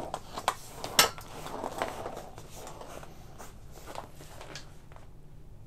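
Hands handling a keyboard stand leg and its 3D-printed caster adapter: a few sharp clicks and knocks, the loudest about a second in, with rubbing and fumbling between them.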